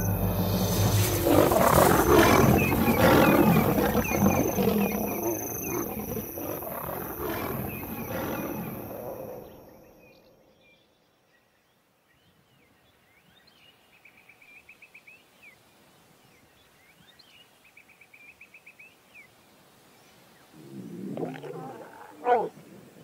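Lions roaring and snarling in a fight, loud for about ten seconds and then fading away. Faint rapid trilling calls follow in the quiet, then a brief animal call near the end.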